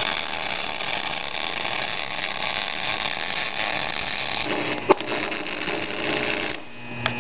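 MIG welder arc crackling steadily as it lays a bead along a crack in a preheated cast-iron exhaust manifold, using 70-grade wire and CO2 shielding gas. A sharp pop comes about five seconds in. The arc stops about six and a half seconds in, leaving a steady hum.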